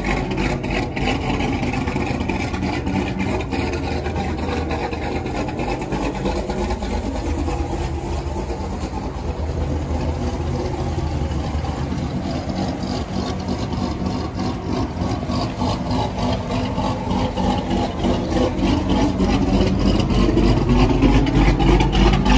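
Exhaust of a C7 Corvette Z06's supercharged V8 fitted with a BTR Stage 2 camshaft, idling with an evenly pulsing, choppy beat that gets louder over the last few seconds.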